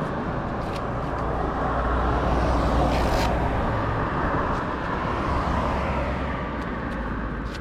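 Honda CB500X motorcycle under way: a steady low engine hum under even road and wind noise.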